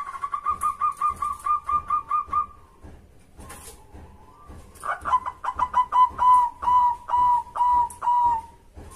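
Zebra dove (perkutut) cooing: a quick run of about ten short, clipped notes. After a pause of about two seconds comes a second run that starts fast and slows into longer, slightly lower notes.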